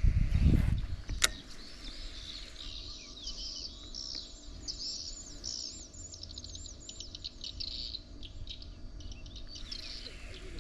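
Birds chirping in a dense chorus of rapid, repeated high notes, starting a few seconds in, after a loud low rumbling in the first second and a single sharp click.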